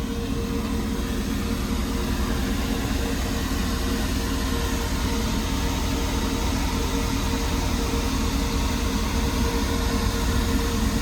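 Steady machine noise: an even rushing hiss with a constant mid-pitched hum, unchanging throughout.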